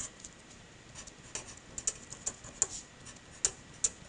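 Felt-tip marker writing letters on paper: a run of short, irregular taps and scratches, about two or three a second, starting about a second in.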